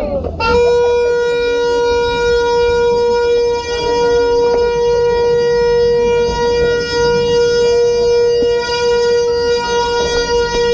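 A horn blown on one steady, fairly high note, starting about half a second in and held unbroken for many seconds.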